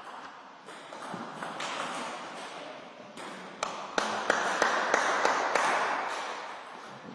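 Table tennis ball clicking off paddles and the table in short, sharp taps, then a run of evenly spaced taps about three a second, over steady background noise.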